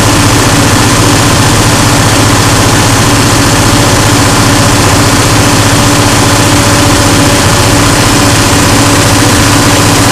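John Deere 6068 six-cylinder diesel engine of a Wacker G160 generator set running steadily at its governed 1800 rpm under a light load, a loud, unchanging drone.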